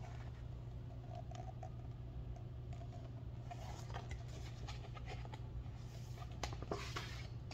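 Pages of a paperback picture book being handled and flipped: soft paper rustles and flicks, busiest in the last second or so, over a steady low hum.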